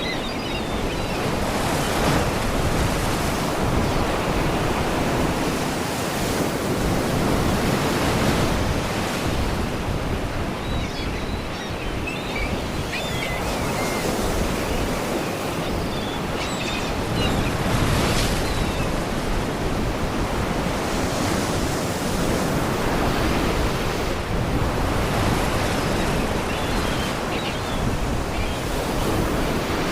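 Sea waves washing against rocks: a steady surf that swells and eases every few seconds. Faint gull cries come through now and then.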